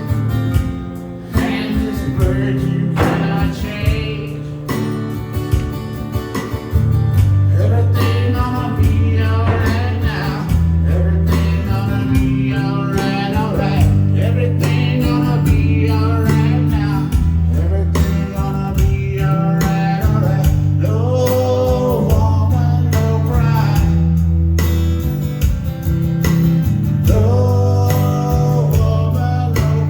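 Guitar-led song with a singing voice over it; a deep, sustained bass line comes in about seven seconds in and carries on under the guitar and vocals.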